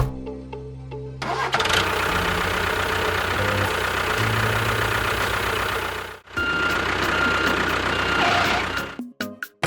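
A motor running loudly for about five seconds, cutting out briefly, then running again for about three seconds, followed by a few sharp clicks near the end.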